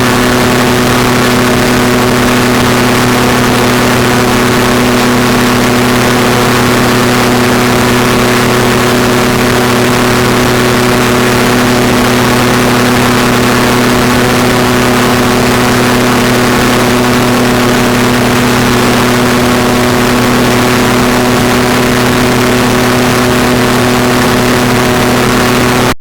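Ultralight aircraft engine running steadily at a constant pitch, with a noisy rush behind it.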